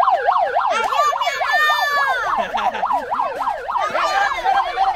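Electronic siren in a fast yelp pattern, its pitch sweeping rapidly up and down about five times a second without a break.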